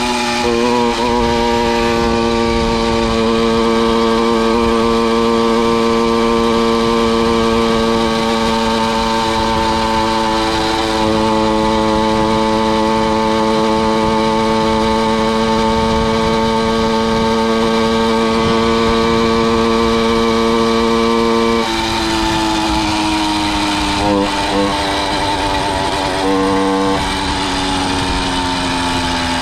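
Two-stroke engine of a motorized bicycle running at a steady high pitch under throttle. About twenty-two seconds in, the revs drop and stay lower, with a few short blips of throttle near the end.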